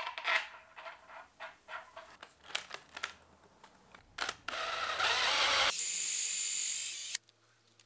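Light metal clicks and knocks as the crankshaft pulley is slid back onto the crank. About four and a half seconds in, a DeWalt cordless drill runs for about two and a half seconds, reaming the dowel holes through the pulley into the crankshaft out to 4 mm. It settles into a steady high whine before cutting off.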